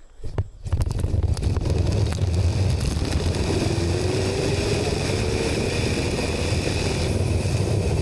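Steady low rumble of wind buffeting the microphone as she is hauled up the rope, with a few clicks at the start and a faint whine that slowly rises in pitch through the middle.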